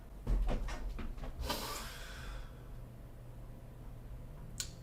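A person breathing hard in a shocked reaction: a breathy noise for about two seconds, then quiet room tone, with a single short click near the end.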